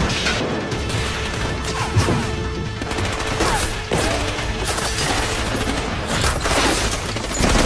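A sustained volley of gunfire, many shots cracking in quick succession, with a film score underneath.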